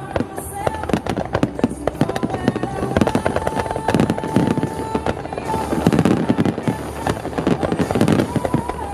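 Starmine fireworks: a dense, rapid barrage of shells bursting and crackling one after another. Music from the venue's loudspeakers plays underneath.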